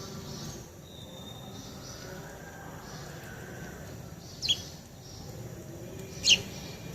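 Wild birds calling: faint scattered calls and a thin whistle, then two short, sharp, high chirps a little under two seconds apart, the loudest sounds.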